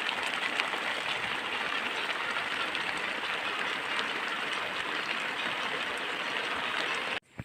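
Steady hiss of rain falling, even throughout, cutting off abruptly near the end.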